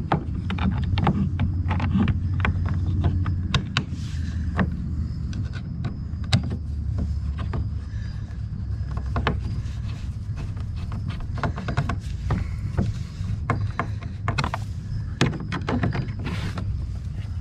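Hand screwdriver starting quarter-20 screws through a plastic kayak bow mount, giving scattered irregular clicks and scrapes over a steady low rumble.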